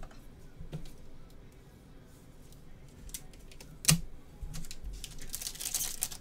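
A few light clicks and taps of plastic-cased trading cards being handled and set down, the sharpest about four seconds in, then the crinkle of a foil trading-card pack wrapper being handled near the end.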